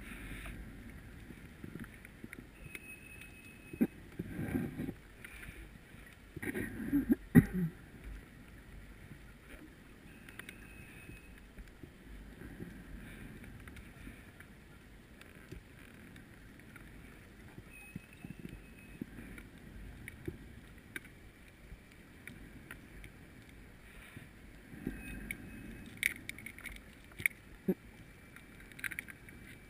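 Muffled underwater noise heard through a camera's waterproof housing, with low rumbling surges twice near the start and once near the end, and a few sharp clicks toward the end.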